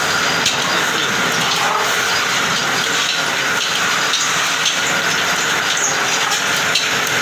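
Metal-spinning lathe running while a long hand-held spinning tool is pressed against an aluminum blank on the turning form, shaping a handi cooking pot: a steady rushing hiss with a faint steady whine in it.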